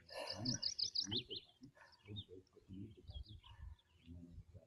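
A small songbird singing: a fast run of about eight quick high chirps in the first second, then scattered single chirps.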